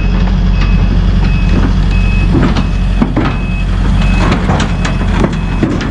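Diesel engine of a large excavator running with a low rumble while its travel/backup alarm beeps, one steady high tone repeating about every 0.7 seconds, with a few sharp metallic knocks in the second half.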